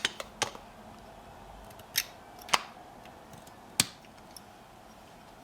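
Sharp metallic clicks from small parts and a tool being worked on a Canik pistol's slide during disassembly: about five separate clicks at uneven intervals, the last coming just before a part pops out.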